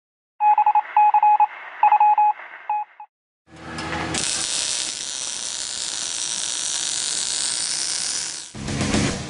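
Electronic beeps at one pitch in a run of short and longer pulses, then a steady hiss for about five seconds that cuts off suddenly as heavy rock music starts near the end.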